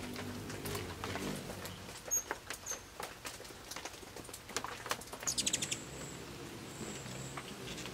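Hummingbirds calling around a nectar feeder: scattered sharp chip notes and clicks, a quick chattering run of ticks about five and a half seconds in, and thin, very high squeaks near the end.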